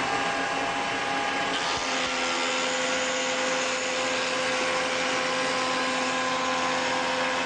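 Shopsmith Mark V running as a shaper with a steady motor whine, its round-over cutter shaping the edge of a wooden door-frame piece as it is fed along the fence.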